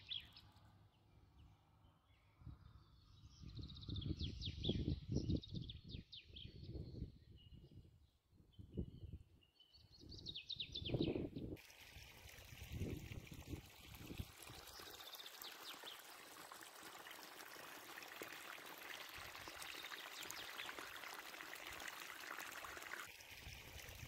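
Small birds chirping over uneven low rumbles, then, after a cut about halfway through, the steady rush of a flowing stream.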